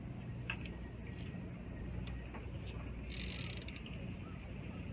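Jet airliner passing high overhead: a distant, steady low rumble, with faint clicks and a brief rustle about three seconds in from the camera being handled.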